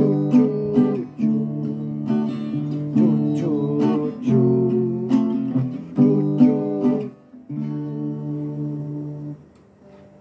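Acoustic guitar strummed in a steady chord rhythm, playing out the song's ending. A last chord about seven and a half seconds in rings, then is damped off about nine and a half seconds in.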